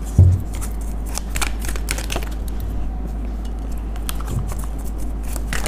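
Tarot cards being handled and shuffled by hand: an irregular run of quick, crisp clicks and flicks, with a low thump about a quarter second in. A steady low hum runs underneath.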